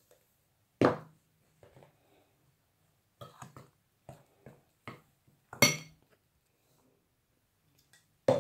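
Metal spoon knocking against a glass mixing bowl while stirring flour into a thickening cookie dough: a handful of irregular clinks, the loudest about a second in and another just before six seconds.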